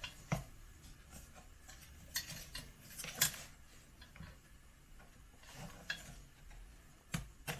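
Scattered clicks, taps and scrapes of an Instant Pot's parts being handled and slid apart during disassembly, with the sharpest click about three seconds in and a few more near the end.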